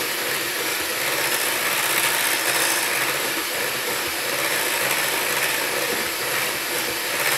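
Electric hand mixer running steadily, its beaters whisking a thick mix of Greek yoghurt and condensed milk in a glass bowl.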